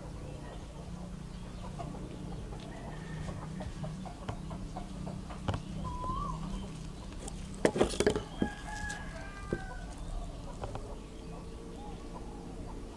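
Chickens clucking, with a loud burst of short calls about eight seconds in, over a steady low hum.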